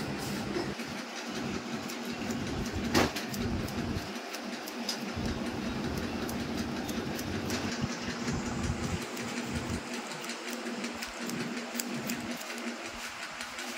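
Barber's scissors snipping over a comb in a long run of repeated metal clicks, over a steady background hum, with one louder knock about three seconds in.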